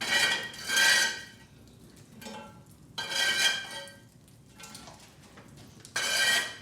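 Metal scraping and clanking on a Dutch oven's lid as hot coals are piled onto it: four short ringing scrapes, two close together at the start, one a few seconds in and one near the end.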